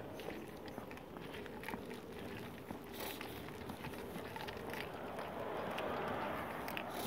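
Footsteps of a person walking on a concrete sidewalk, irregular short scuffs and taps over a steady outdoor hiss.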